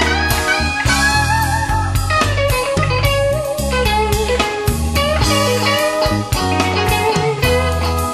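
Background music: an instrumental break from a blues-style song, with a guitar lead playing bending notes over a steady beat.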